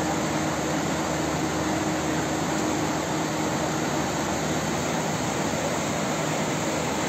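Steady rushing roar of a muddy flash-flood torrent pouring along a street.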